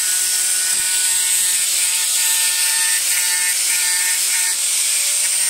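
Electric angle grinder with an abrasive disc running steadily against a small iron anvil, grinding off rust: a constant motor whine with a bright hiss on top.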